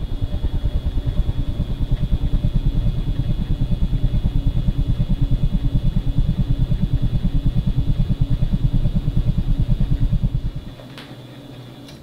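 Evergo "Banana Fan" ceiling fan running, its blades sweeping close past the microphone so their air wash comes through as a loud, rapid pulsing buffet, about seven pulses a second, over the motor's low buzzing hum. The buffeting stops near the end, leaving the hum, and the fan's pull chain clicks.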